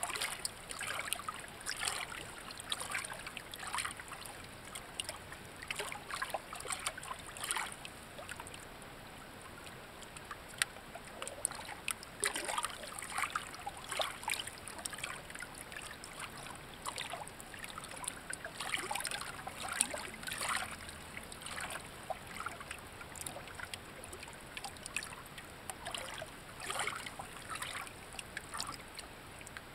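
Shallow water trickling and lapping, with many small uneven splashes.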